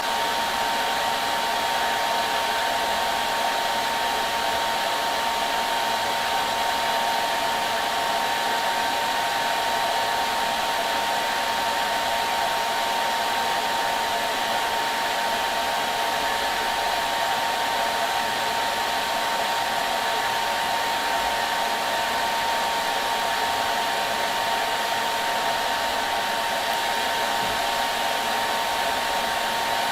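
Hair dryer running continuously at a constant setting: a steady rushing blow with a faint steady whine, used as white noise for soothing a baby to sleep.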